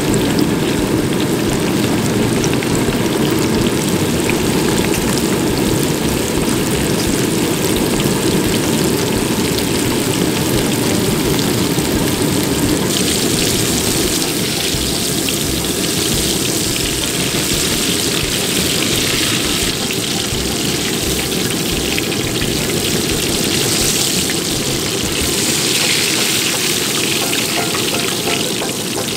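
Floured yellowtail fillets frying in a pan of hot oil: a loud, steady sizzle. About halfway through it turns hissier and higher.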